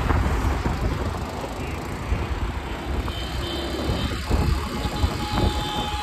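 Wind rushing over the microphone and road noise on a moving scooter, a dense, fluctuating rumble.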